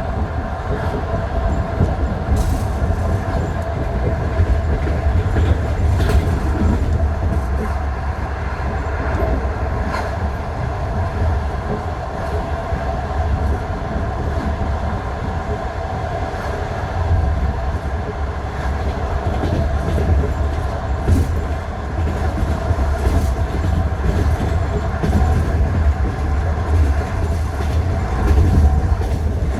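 Passenger train wheels knocking over the rail joints of jointed (non-welded) track, the clickety-clack heard from aboard the moving train. It runs over a steady low rumble and hum, with sharp knocks every few seconds.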